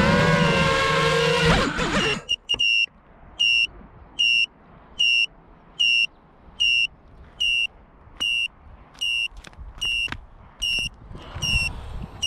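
A pitched sound with a wavering pitch stops abruptly about two seconds in. From then on an FPV quadcopter's buzzer beeps steadily, one short high beep about every 0.8 seconds, the beeper that sounds on a disarmed quad.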